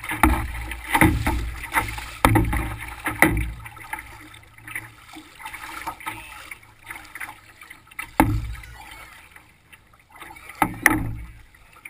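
Small waves slapping and splashing against a canoe's hull close to the microphone: several hits about a second apart at first, then quieter lapping with a couple more splashes later on.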